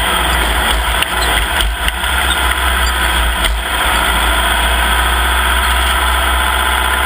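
Off-road race vehicle's engine running steadily under a loud, dense rush of noise.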